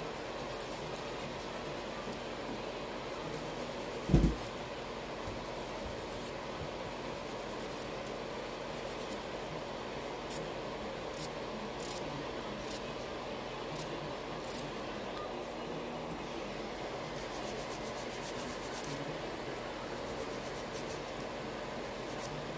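Steady background hiss, with one dull thump about four seconds in; later, faint light ticks and rubbing as a small clear plastic zip bag is handled and set down on a towel.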